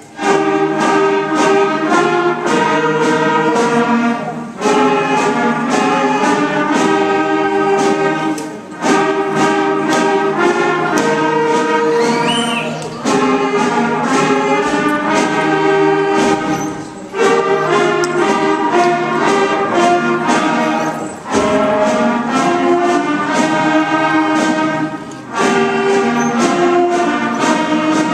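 School concert band playing, with brass such as trombones and trumpets to the fore, in sustained phrases of about four seconds, each ending in a short break before the next loud entry.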